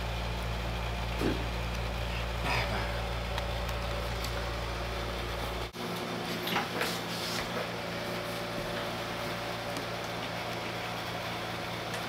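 Steady low hum of background noise, with a few light knocks and clicks of handling. The deepest part of the hum drops away abruptly about six seconds in.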